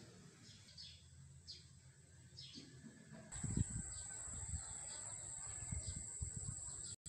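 Small birds chirping, short high chirps every second or so. About three seconds in, a louder uneven low rumble and a thin steady high tone join, and the sound cuts off suddenly near the end.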